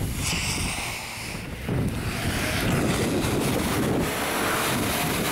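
Wind buffeting the microphone, over the low rumble of a vehicle towing a snow-covered car along on a strap; it gets louder about a second and a half in.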